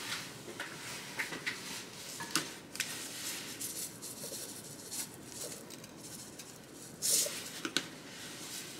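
A plastic container of sesame seeds shaken over a plate of food: scattered light clicks and small rattles, with a short, louder rustle about seven seconds in.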